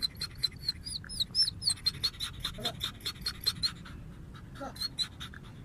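A small bird chirping rapidly, with short high notes at about five a second. A few of the notes swoop upward, and the run thins out near the end.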